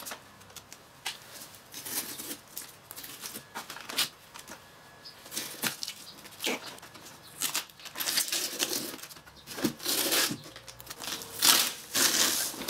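Irregular rustling, scraping and light knocks as a notice board is handled and shifted into place, busier and louder in the second half.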